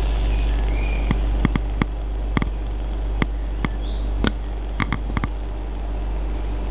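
Newborn kittens nursing: two brief, faint high squeaks, about a second and four seconds in, over a steady low hum, with irregular sharp clicks.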